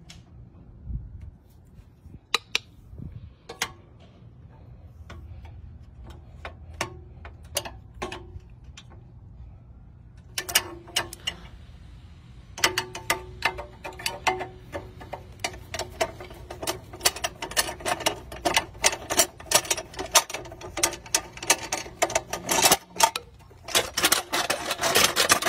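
Metal clicks and rattles from a steel wheel clamp (parking boot) being unbolted and pulled apart. Scattered single clicks at first, then about halfway a fast run of clicks, several a second, that keeps on.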